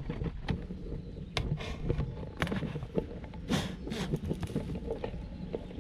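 Irregular rustling, crinkling and rattling as a wire-mesh snake trap wrapped in a plastic sack is handled against leaves, with sharp clicks and short scrapes. A steady low engine hum runs underneath.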